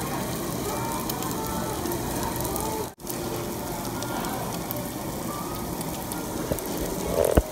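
Meat sizzling on a tabletop barbecue grill as a steady hiss, with faint restaurant chatter behind. The sound drops out for an instant about three seconds in, and a sharp knock comes near the end.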